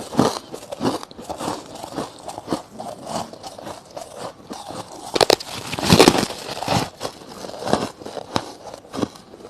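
Soft frost and crushed ice being bitten and chewed close to the microphone: a steady run of crisp crunches, two or three a second, loudest about five to six seconds in.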